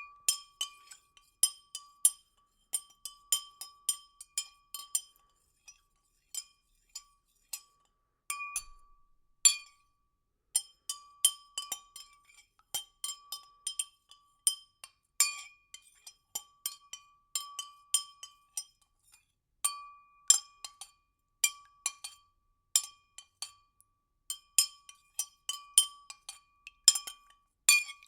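Light, irregular clinks, about two or three a second, each with a short bright ringing tone. There is a lull of a few seconds partway through.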